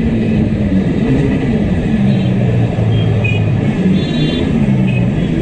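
Yamaha RD350's two-stroke parallel-twin engine running on the move, its pitch rising and falling with the throttle, while one cylinder misfires heavily.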